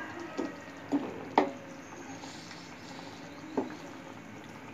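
Wooden spoon stirring a bubbling beef curry in an aluminium karahi, with a few light knocks of the spoon against the pan.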